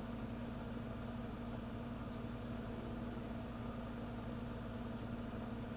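Steady machine hum with a constant low drone, even in level throughout.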